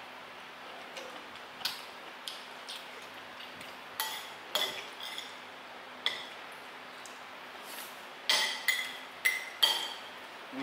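Metal spoon and fork clinking against ceramic plates during a meal: scattered light taps that come thicker and quicker near the end.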